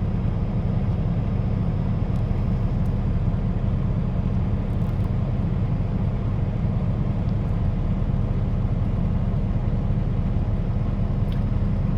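John Deere 290 hydraulic excavator's diesel engine running at a steady, even low drone as it digs and loads sand.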